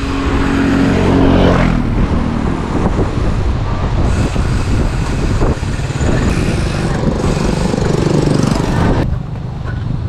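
Wind buffeting the microphone of a camera on a moving bicycle, with a motor vehicle's engine passing in the first two seconds. The wind noise drops off about nine seconds in.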